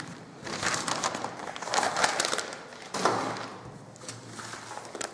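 Newsprint rustling and crinkling as newspapers are handled and shifted on a table, with a felt-tip highlighter scratching across the paper, in uneven surges.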